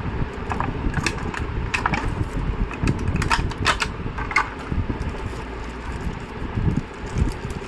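Hands handling webcam packaging: a plastic box tray clicks and a soft wrapping rustles as the camera is pulled out, with the clicks mostly in the first half. A steady low hum runs underneath.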